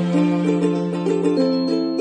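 Background music: a plucked-string tune of quick repeating notes over a held low note.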